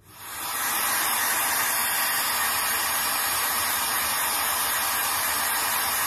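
A motor-driven air blower or extractor, the kind that draws workshop dust, running with an even rushing hiss. It cuts in abruptly and holds steady.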